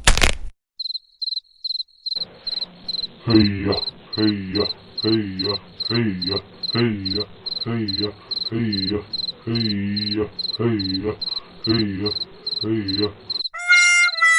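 Crickets chirping in a steady, rapid high-pitched pulse. From about three seconds in, a louder, low, wavering sound repeats roughly once a second, and a few musical notes start near the end.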